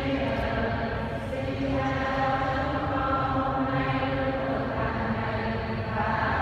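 Church congregation chanting a prayer together in unison on slow, held notes that change pitch every second or two.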